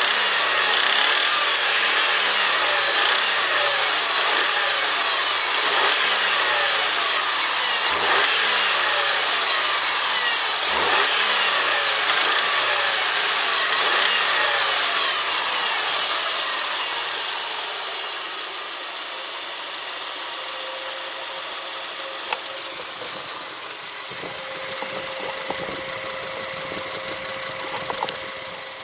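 Subaru EJ253 2.5-litre flat-four engine running with a knock, the sound of the damaged engine before its rebuild. The sound drops in level a little over halfway through and runs on more quietly.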